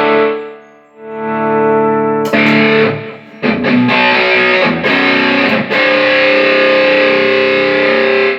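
Electric guitar played through a Line 6 HD500X multi-effects unit with distortion, the repaired unit passing signal at its output: a chord swelling in, a brighter chord, a run of short choppy strums, then one long sustained chord near the end.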